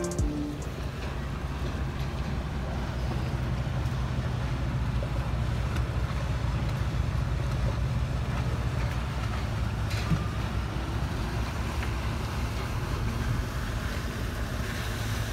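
Steady low drone of a boat engine, with a hiss of wind and water over it.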